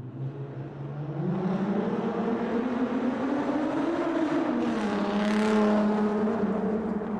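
Car engine heard in a tunnel, accelerating with its pitch rising over a few seconds, then easing slightly and holding steady. A rush of noise swells about five seconds in.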